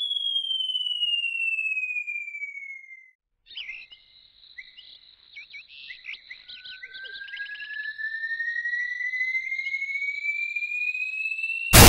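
Cartoon whistle sound effects: a whistle tone gliding down for about three seconds, a short pause, a flurry of warbling chirps, then a whistle tone gliding slowly upward for about five seconds, cut off at the very end by a crash.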